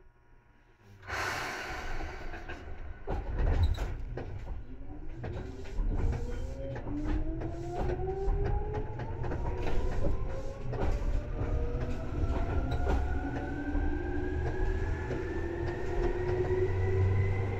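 Seibu 2000 series electric train starting off, heard from inside the car above the line breaker. A sudden loud clunk about a second in as power is applied is followed by the traction motors' whine, which rises steadily in pitch as the train accelerates, with clicks from the wheels and rail joints.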